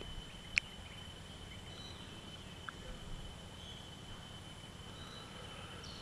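Quiet outdoor ambience: a steady high-pitched hum with a few faint bird chirps, and one sharp click about half a second in.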